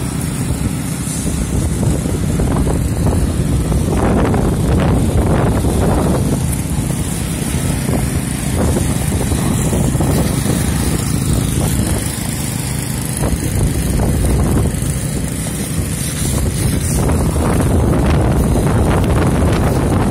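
Walk-behind power trowels ('helicopters') with small petrol engines running steadily, their rotating blades floating and finishing a concrete slab.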